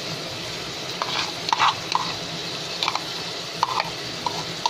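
Split moong dal tipped and scraped from a plastic bowl into a steel pressure cooker, giving a few light taps and scrapes over a steady soft sizzle of oil heating under the lentils.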